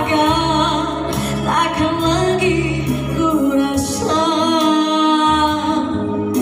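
Woman singing into a microphone over backing music, holding long notes that bend in pitch.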